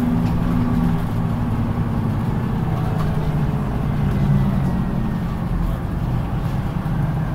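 Engine and road noise of an Autosan Sancity 12 LF city bus driving along, heard from inside the passenger cabin. There is a steady low engine hum, and a faint whine slowly falls in pitch midway.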